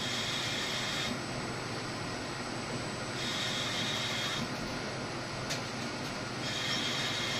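CNC lathe cutting a thread on a hydraulic cylinder tube with a threading tool: the machine runs steadily, and a high-pitched cutting sound comes in for about a second on each threading pass, three times about three seconds apart.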